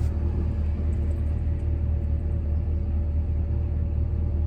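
GMC Sierra 2500's V8 engine idling steadily with a low, even rumble. The engine has been stalling right after starting; the owner's lookup points to worn spark plugs.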